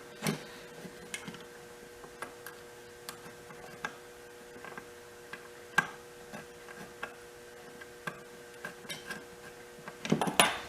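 Scattered light clicks and taps of hand tools and small parts being handled, with a denser run of clicks near the end, over a faint steady hum.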